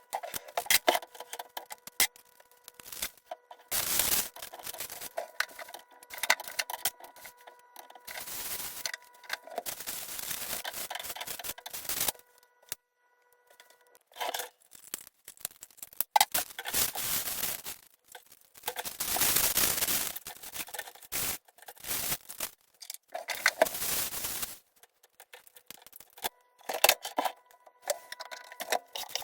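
Grocery packages being handled and loaded into a dishwasher: rubbing and rustling of plastic wrapping, scrapes and clicks in irregular bursts with short pauses between, over a faint steady hum.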